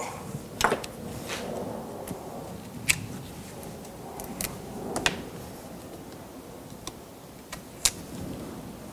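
Pruning secateurs clicking and snipping at the freshly cut branch stub of a Japanese white pine bonsai: scattered sharp clicks a second or more apart, the strongest about a second in and near the end.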